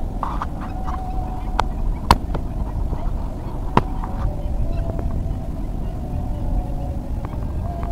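Outdoor low rumble of wind on the microphone, with a faint steady droning tone over it. A few sharp clicks come from handling a hooked tilapia in netting while the hook is worked loose, the loudest about two seconds in and again nearly four seconds in.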